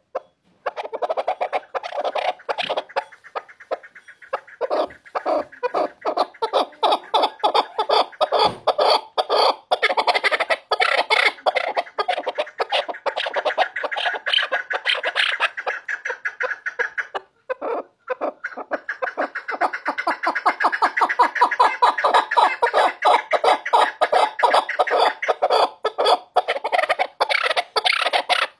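Chukar partridge calling: a long, fast series of repeated chuck notes, breaking off briefly a little past halfway and then starting again.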